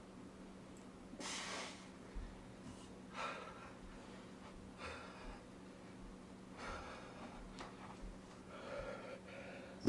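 A man breathing hard from exertion during an exercise set, with forceful exhales about every one and a half to two seconds.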